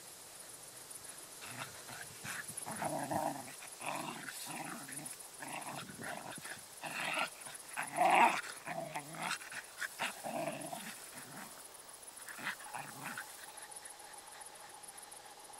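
Two dogs play-fighting, growling in a run of short bursts that is loudest about eight seconds in and dies away after about thirteen seconds. It is play growling, not a real fight.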